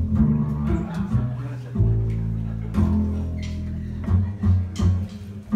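Live jazz band playing: deep upright bass notes held under guitar chords, with drum and cymbal hits.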